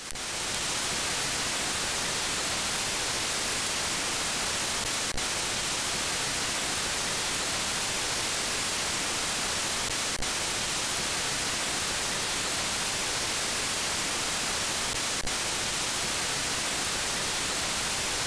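Steady hiss of analog television static (white noise), fading in at the start, with a faint click about every five seconds.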